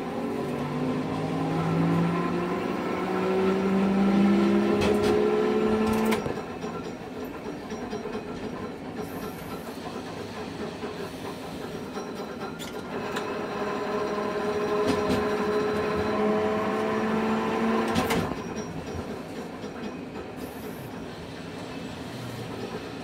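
Hankai Tramway streetcar heard from inside the car: its motor whine rises in pitch as it gathers speed, then stops suddenly as power is cut and it coasts. This happens twice, once about six seconds in and again later. A few sharp clicks come from the wheels on the rails.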